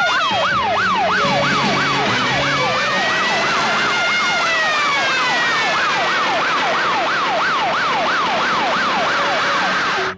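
Emergency vehicle sirens: one yelping up and down about twice a second over a second that wails slowly up and back down. Both cut off abruptly near the end.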